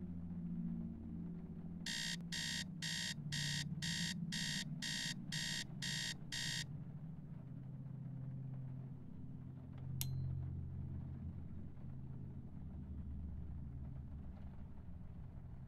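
Digital alarm clock going off: about ten high electronic beeps, roughly two a second, that stop abruptly after about five seconds. A low, sustained musical drone runs underneath, and a single sharp click sounds about ten seconds in.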